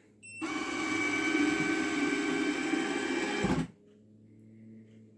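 Electric linear actuator motor running in reverse with a steady geared whine, lowering the cat feeder box. It starts about half a second in and stops after about three seconds, with a low thump as it stops.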